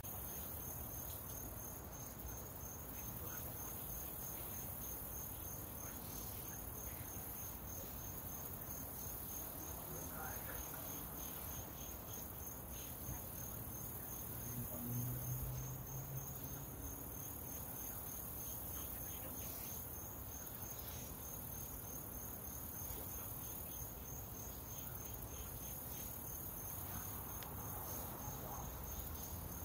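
A cricket trilling: a high-pitched chirp repeated in rapid, even pulses that never stops, over a soft background hiss.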